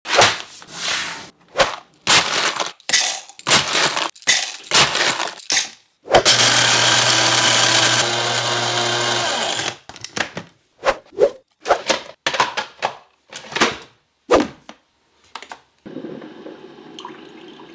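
A quick run of short kitchen clatters and knocks, then an electric coffee grinder running steadily for about three and a half seconds as it grinds beans, followed by more short clatters in quick succession and a faint steady hum near the end.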